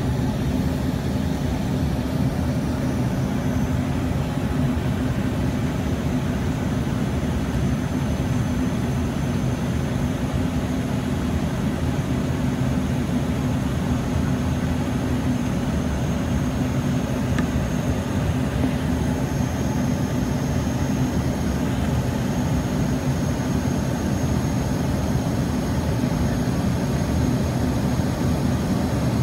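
Cabin noise inside an Embraer ERJ-145 climbing after takeoff: the steady, unbroken drone of its two rear-mounted Rolls-Royce AE3007 turbofans and the rush of air past the fuselage. A faint high whine sits above it, clearer in the second half.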